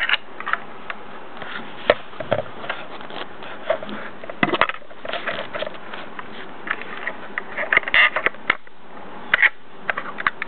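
Handling noise from fingers working a die-cast model garbage truck: irregular light clicks and knocks of its small parts over a steady hiss.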